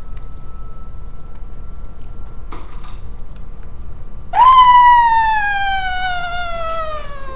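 A child's long, high scream that starts about four seconds in and slides slowly down in pitch for about three seconds.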